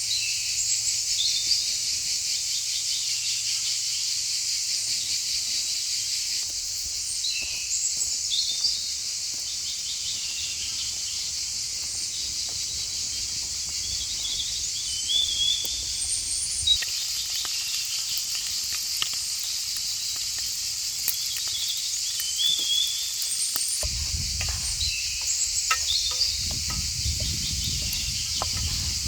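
Steady, dense insect chorus with scattered short bird chirps over it; a low rumble comes in near the end.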